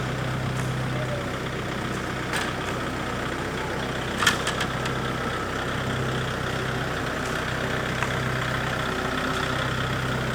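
An engine idling steadily, with a few short knocks, the sharpest about four seconds in.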